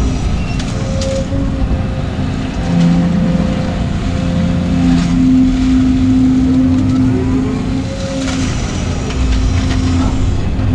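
Volvo excavator's diesel engine and hydraulics working as the bucket digs mud and swings to dump it, heard from inside the cab. A steady engine drone with a humming tone that strengthens and shifts in pitch as the hydraulics take the load.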